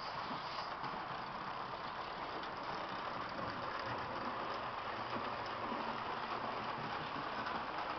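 Märklin H0 model train running along its track, a steady whirring rumble of the small motor and wheels on the rails.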